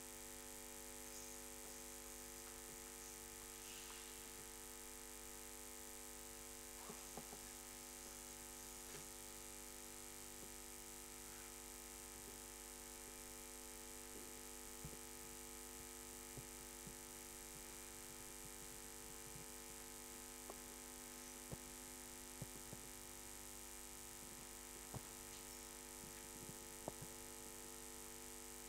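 Steady electrical hum, several tones held constant, with a dozen or so faint, scattered clicks and knocks.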